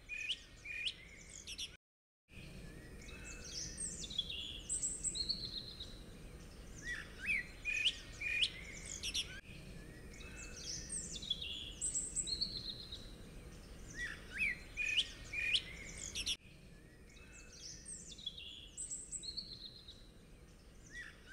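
Birdsong ambience: several birds chirping and whistling in short high phrases that recur every few seconds, with a brief total dropout about two seconds in.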